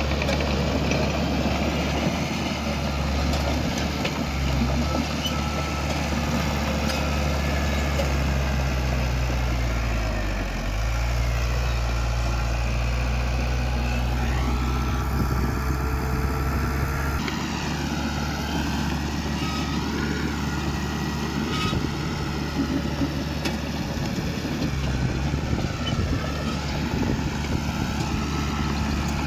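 Heavy earthmoving machine's diesel engine running steadily, its pitch dipping briefly about ten seconds in, with a higher wavering whine over it.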